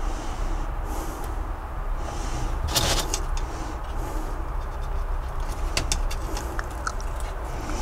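A brass rail joiner being worked onto the rail end of a plastic-sleepered G gauge track section by hand: small metallic clicks and scrapes, with a louder short rustle about three seconds in, over a steady low hum.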